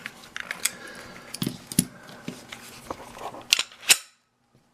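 Small sharp metallic clicks and rattles from the handling of a freshly picked-open Smith & Wesson cable gun lock, irregular and a few to a second, the loudest two about three and a half seconds in. The sound stops suddenly about four seconds in.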